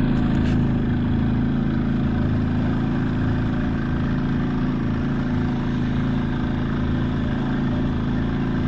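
Evinrude outboard motor on a bass boat idling steadily at low speed, with no revving.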